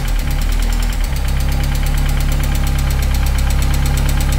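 Mercedes-Benz SLK230's supercharged 2.3-litre M111 four-cylinder idling. About a second in, it settles into a steady idle as the throttle plate is held slightly open by hand. With the throttle opened a few degrees it runs fine; closed, it hunts, because the throttle valve's stop is not programmed.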